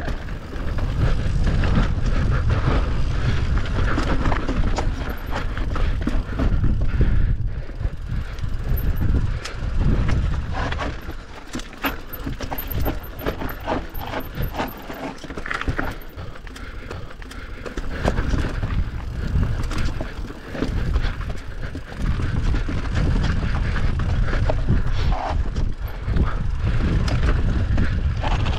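A bike ridden fast down a rough dirt enduro trail: wind rumbling on the on-board microphone, with frequent knocks and rattles as the bike hits bumps, rocks and roots.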